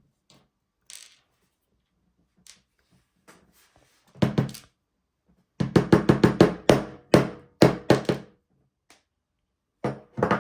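Sharp knocks as a Union oval brass lock cylinder is tapped to shake the pins and spring out of a pin chamber: a couple of knocks a little before halfway, a fast run of about a dozen that ring briefly, then two more near the end.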